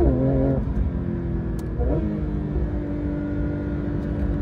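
Porsche 911 GT3 RS's naturally aspirated 4.0-litre flat-six heard from inside the cabin under acceleration. Its pitch drops sharply as it shifts up at the start and dips again with another shift about two seconds in, then climbs slowly as the car pulls.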